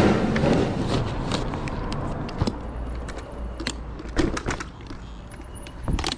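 Several sharp clicks and short light rattles of an electric scooter being brought to a stop and parked, over a low steady rumble.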